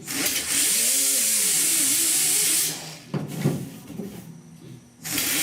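Grinder working down welds on the truck's sheet-metal roof panel: a loud hissing grind for about two and a half seconds with a wavering motor pitch, a lull, then a second burst starting near the end.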